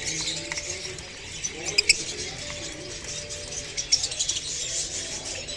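A crowd of caged birds chirping and twittering together, with scattered sharp clicks and lower wavering calls beneath.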